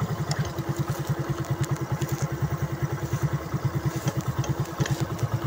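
Small motorcycle engine running at low revs, an even putt-putt of about nine beats a second.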